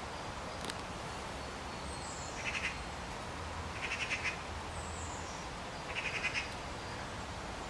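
Birds calling: a short stuttering, chattering call three times, and a brief high whistle falling in pitch twice, over a steady outdoor hiss.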